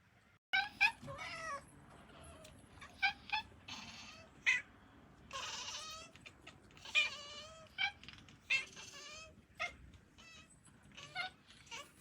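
Cats meowing back and forth: a string of about a dozen calls, mixing short chirps with longer, bending meows.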